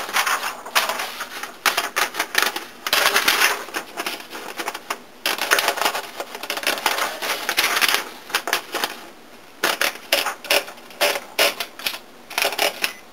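A 1967 Olympia SF portable manual typewriter is having paper wound in, its platen ratcheting in quick runs of clicks. This is followed by separate sharp mechanical clicks in the second half.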